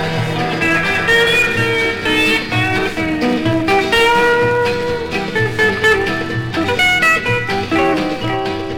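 Instrumental ending of a 1950s country song: picked guitar notes over a steady bass beat, with no singing.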